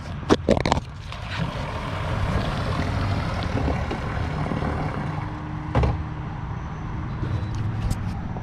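Boat's jet outboard motor running steadily, a low hum under a rushing haze, with a few sharp knocks near the start and about six seconds in.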